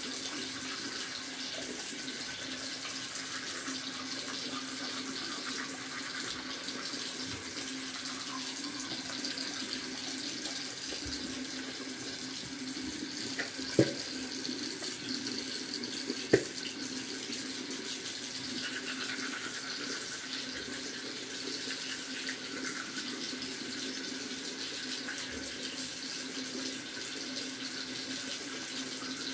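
Bathroom sink tap running steadily into the basin, with two sharp knocks a couple of seconds apart midway through.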